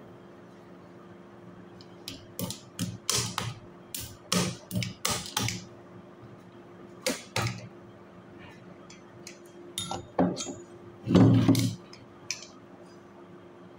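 Irregular metallic clicks and taps of a screwdriver and parts against a car AC compressor while its clutch coil is being fitted, with a heavier knock near the end, over a steady low hum.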